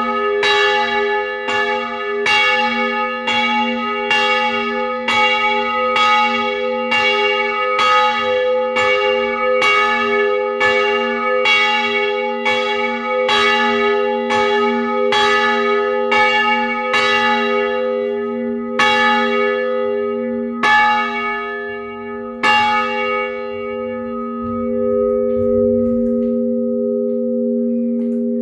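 The large church bell, St. Francis Xavier, cast by Bratia Fischer in Trnava in 1924 (about 420 kg, 896 mm across), swings and rings with about one clapper strike a second. Near the end the strikes come farther apart and stop as the bell swings down, and its hum rings on.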